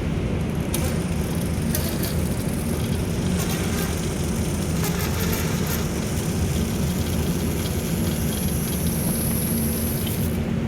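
DC brushed motor of a homemade electric recumbent bike running steadily under throttle, a low even drone. A thin high whine joins it in the second half, with a few light clicks.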